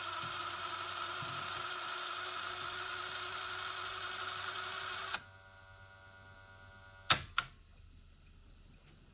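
A steady hiss with a faint hum stops abruptly with a click about five seconds in. About two seconds later come two sharp mechanical clicks about a third of a second apart.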